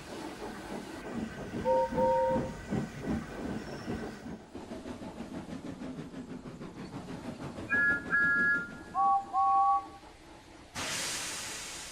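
Steam locomotives whistling and chuffing. A low two-note whistle gives a double toot early on, rhythmic chuffing runs underneath, then a higher-pitched double toot and a mid-pitched double toot come close together about two-thirds through. A sudden burst of steam hiss starts near the end.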